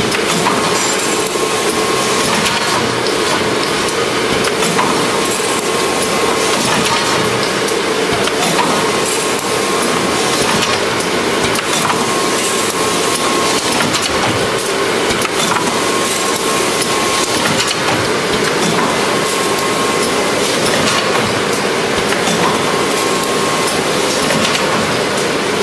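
Automatic brochure folding and gluing machine running: a steady, dense mechanical clatter with a constant hum under it.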